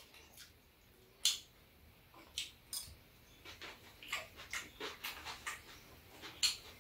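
Scattered clinks of metal spoons against a stainless steel bowl of food, the sharpest about a second in, followed by a run of small ticks over the second half.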